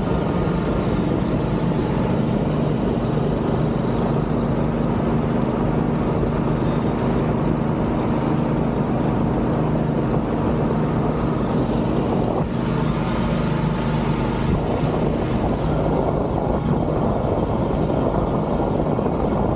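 Golf cart driving over packed beach sand: a steady rumble of wind and tyres with a constant motor hum and a thin high whine.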